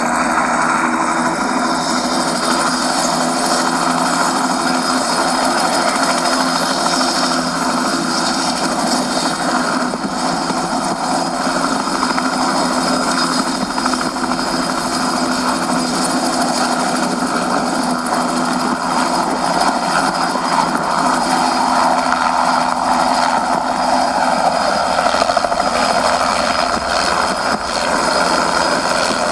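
Radio-controlled 700-class scale Bell JetRanger helicopter running steadily. Its rotor noise is mixed with an onboard sound module's turbine effect, a steady whine.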